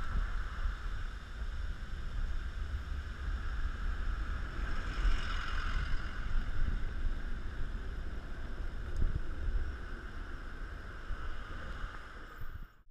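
Steady road and wind noise of a car driving through city traffic: a low rumble with a hiss over it. It cuts off suddenly near the end.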